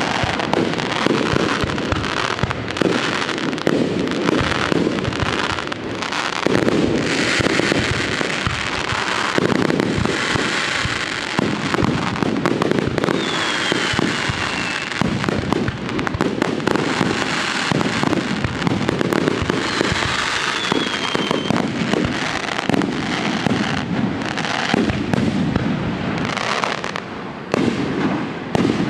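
Fireworks display: a dense, continuous barrage of bangs and crackling shell bursts. Twice a short whistle falling in pitch cuts through the bursts.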